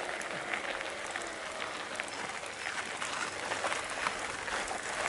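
Mountain bike rolling over a rough dirt trail: tyres crackling on loose stones and grit, with a steady scatter of small clicks and rattles.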